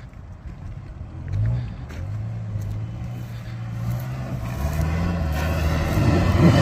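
Daihatsu Fourtrak 4x4's engine pulling under load on a sandy off-road track. It comes in about a second in, then revs rise and it grows louder toward the end.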